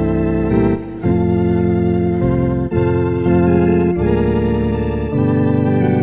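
Organ playing sustained chords with a wavering tremolo, moving to a new chord about once a second, with a short break just before the first change.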